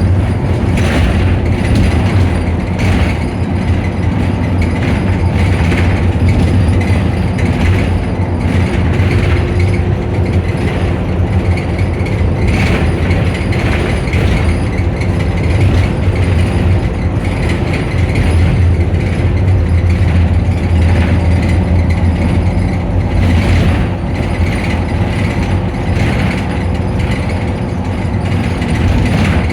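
Optare Solo bus engine running with its cooling fan going: a steady low drone with a constant tone, overlaid by an irregular mechanical rattling.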